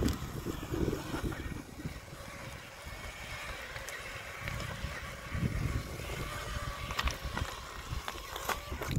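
A brushless RC rock crawler (1.9 Wraith with a Puller Pro 3500 motor) driving over loose shale rock: a faint steady motor and gear whine over an irregular low rumble. A couple of sharp clicks come near the end.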